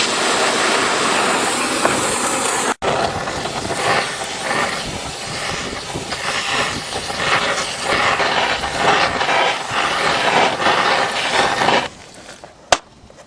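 Fire burning off oily residue and spilled corn on the underside of a car, a loud rushing noise that flickers in level. It breaks off briefly near 3 seconds and drops away about twelve seconds in.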